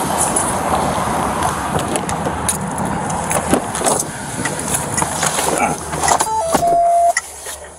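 Steady road-traffic noise with scattered knocks and rustles from a body-worn camera as its wearer climbs into a patrol car. Near the end a short two-note electronic beep sounds, a higher blip then a lower tone held about half a second, and the traffic noise drops away abruptly, muffled as the car is shut.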